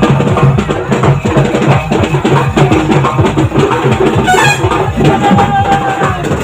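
Loud, continuous festival drumming with a fast, steady beat, typical of a procession drum band. About four seconds in, a brief high sliding note rises above the drums, followed by a short held note.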